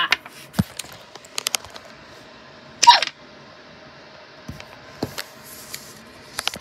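Scattered clicks and light knocks from paper hand puppets and the phone being handled, with one short, loud sound about three seconds in whose pitch falls.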